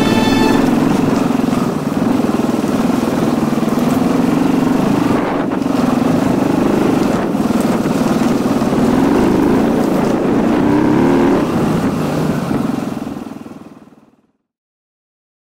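Husaberg FE 390 single-cylinder four-stroke enduro motorcycle engine running on a trail ride, recorded on board, its pitch rising and falling as the throttle opens and closes. The sound fades out near the end.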